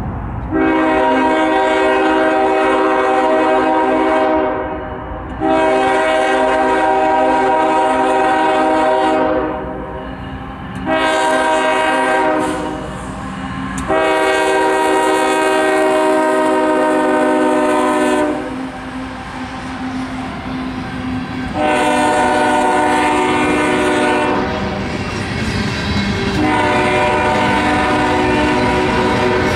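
CSX GE diesel locomotive's multi-chime air horn blowing a chord for the grade crossing: two long blasts, a short one and a long one (the standard crossing warning), then two more blasts, the last still sounding at the end. The low rumble of the passing train runs underneath.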